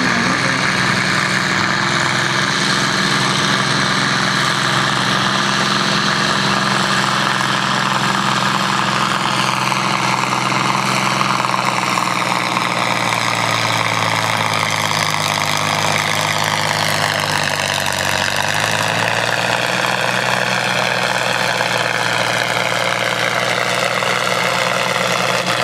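Farm tractor's diesel engine under full load pulling a weighted sled, running loud and steady. Its pitch dips about halfway through, recovers, then sinks steadily toward the end as the engine lugs down under the sled's growing drag.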